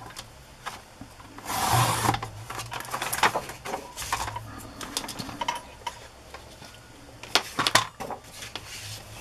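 Fiskars paper trimmer's sliding blade carriage scraping along its rail as it cuts a sheet of paper, about a second and a half in; the blade is dull and needs replacing. Then clicks and knocks from handling the trimmer and paper, the loudest a pair of sharp knocks near the end.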